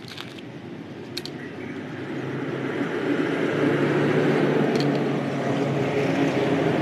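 A motor vehicle's engine grows louder over a couple of seconds, then runs steadily as the loudest sound. Small sharp clicks of quail-egg scissors snipping shells come about a second in and once more later.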